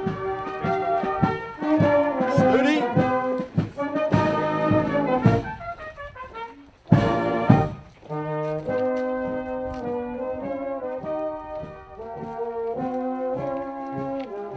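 Marching brass band playing a tune in step-wise held notes, with large low brass such as sousaphones. A brief loud burst of noise about seven seconds in.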